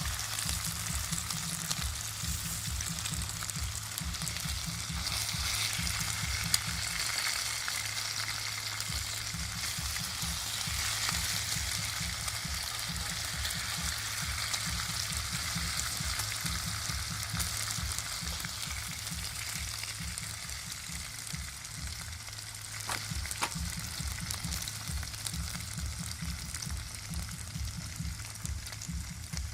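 Pork ribs frying in hot oil, a steady sizzling hiss throughout, with a single sharp click about six seconds in.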